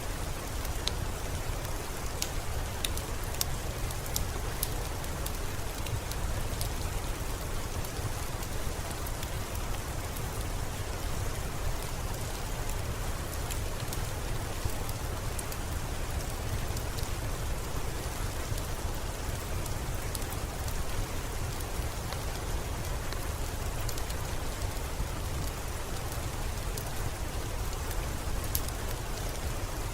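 Steady rain falling, with a deep low rumble underneath and scattered small sharp crackles from a wood fire in a fireplace.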